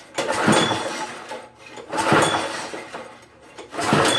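A Poulan Pro push mower's recoil starter is pulled three times, about every second and a half. Each pull cranks the small engine over without it catching: rigged to run on fuel vapor, the engine is not firing.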